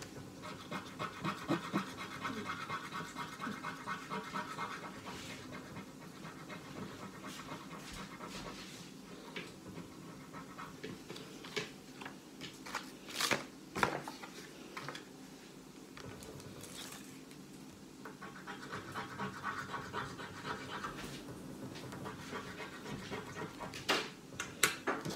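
Scratch-off lottery ticket being scratched in quick rapid strokes, in two spells, one near the start and one later on, with a few sharp taps in between and near the end.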